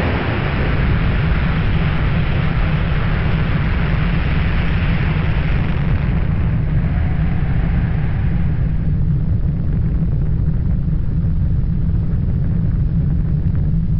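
Long rolling rumble of a huge explosion. Its upper hiss fades away about nine seconds in, while the deep rumble carries on undiminished.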